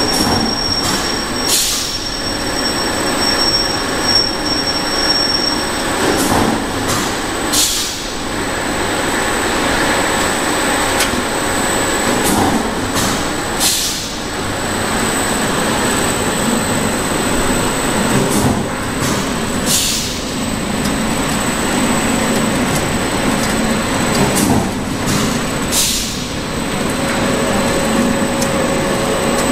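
Continuous mesh-belt fryer line running: steady clattering machine noise with a thin, high, steady whine and a sharp metallic clank about every six seconds.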